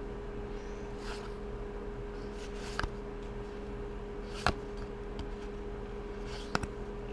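Magic: The Gathering cards being slid one by one from the front to the back of a small stack held in the hands: a few short flicks and snaps of card stock, the sharpest a little past halfway, over a steady low electrical hum.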